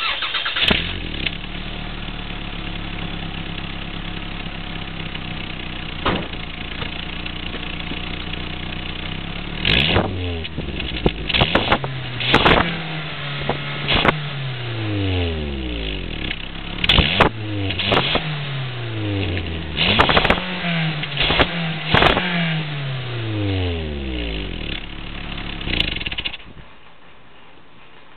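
1990 Toyota Celica GT's 2.2-litre four-cylinder engine, fitted with a bolt-on exhaust turbo whistle, idling steadily, then revved in a dozen or so quick blips with the engine pitch falling back after each one. The engine shuts off near the end.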